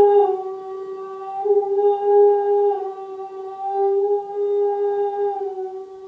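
A voice holding one long, steady note rich in overtones, dropping slightly in pitch about three times.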